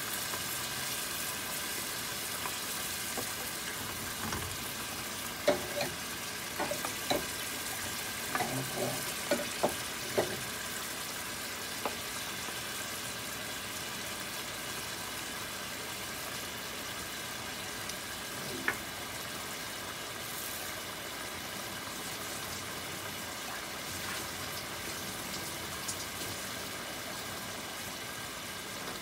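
Shredded salted fish sizzling steadily in oil and water in a metal pan, with a wooden spoon knocking and scraping against the pan several times in the first half, and once more a little later.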